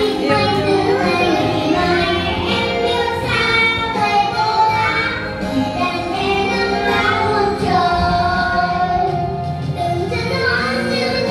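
A young boy singing a Vietnamese children's song into a microphone over a recorded musical backing track.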